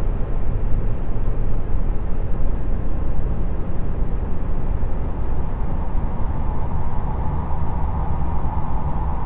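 Steady rumbling drone of noise, heaviest in the low end, presented as the space 'sound' of Jupiter's moon Callisto; a faint hum near the middle of the range comes up toward the end.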